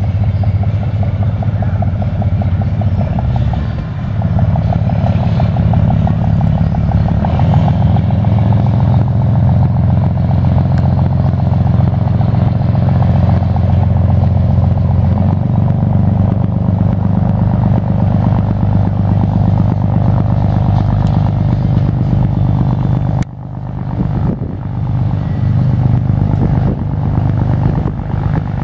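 Boat engine running steadily with a low drone, briefly dropping in level about 23 seconds in.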